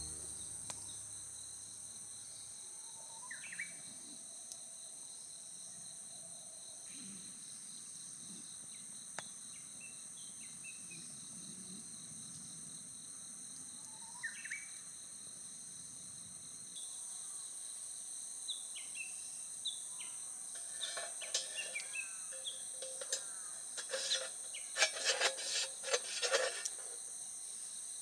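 Steady high trilling of insects, with scattered short bird chirps that come thicker and louder in the last third.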